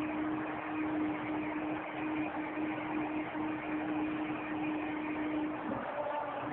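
Stadium crowd cheering after a goal: a steady, dense roar, with one held tone running under it that stops near the end.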